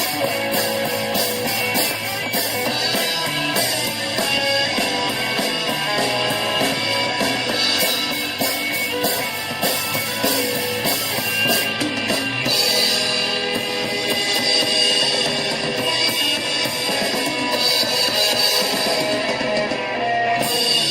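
Rock music with guitar and drums played back through a small portable Bluetooth speaker for a sound test, with almost nothing in the deep bass. It stops abruptly at the end.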